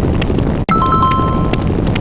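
Sound-effect bell ding over a steady loud rumble: the rumble cuts out for an instant about two-thirds of a second in, and the ding then rings for about a second.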